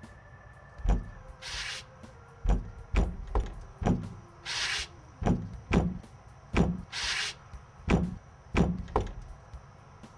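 Knocking on a door: about a dozen separate knocks, singly and in small groups, spaced roughly half a second to a second apart. Three short hissing bursts come between them.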